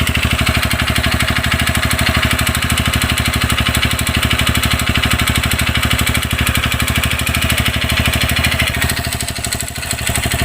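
TVS Radeon BS6 fuel-injected single-cylinder motorcycle engine running steadily with an even beat and an abnormal internal engine noise, which the mechanic takes for piston noise after finding the timing chain tensioner sound. The beat eases and gets a little quieter near the end.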